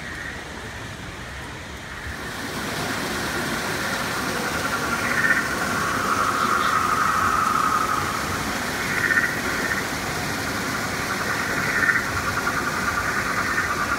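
Dense, high trilling chorus of jungle creature calls, growing louder about two seconds in and swelling briefly every few seconds.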